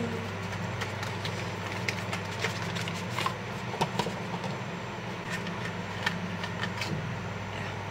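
Steady low hum of a room fan, with scattered light clicks and rustles from a small cardboard earbuds box being opened and handled.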